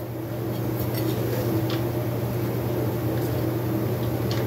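Steady low machine hum, with a few faint metallic clicks from hands working at a small motorcycle engine's cylinder.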